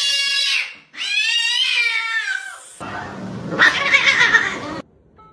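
A cat yowling: two long, drawn-out complaining meows. About three seconds in, these give way to a rougher, noisier scuffle with sharp spikes as two cats fight, which stops suddenly near the end.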